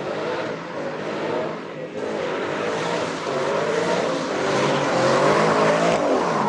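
Sports car engine revving hard as it accelerates past close by, its pitch climbing and dropping several times and getting louder near the end.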